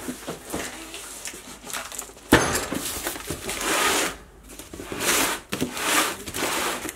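A heavy cardboard box holding a 3 HP electric motor set down with a thud on a wooden workbench about two seconds in, then pushed across the bench top in several scraping strokes.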